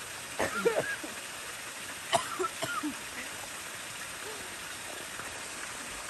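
Two short bursts of a person's voice, about half a second in and again about two seconds in, over a steady background hiss of water and air.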